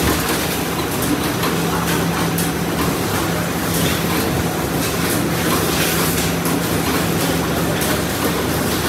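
Vertical pouch-packing machines running steadily: a constant hum with rapid, irregular clicking and clatter.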